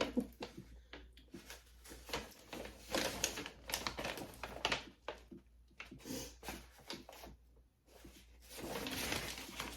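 Packaging being handled by hand: irregular rustling and small clicks and taps.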